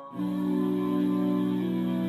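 Instrumental background music: soft held chords, with a change of chord about one and a half seconds in.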